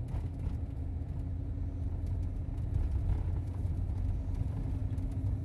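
Vehicle in motion heard from inside the cabin: a steady low rumble of engine and tyres, with a faint steady hum above it.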